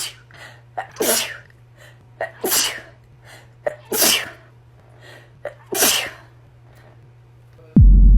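A woman having a sneezing fit: about five sharp sneezes in a row, roughly one every second and a half, each with a short catch of breath just before it. A loud low rumble cuts in suddenly near the end.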